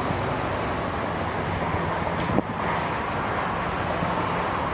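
Steady rumble of road traffic on the overpass mixed with the low hum of a distant diesel locomotive engine, with wind on the microphone. One sharp knock about halfway through.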